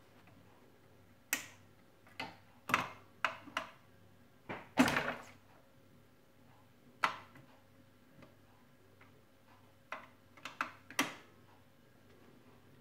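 Garrard RC 121 Mk2 record changer's mechanism cycling: a run of irregular clicks and clunks. About five seconds in comes a louder, longer thud as the next record drops onto the platter. A faint steady motor hum runs underneath.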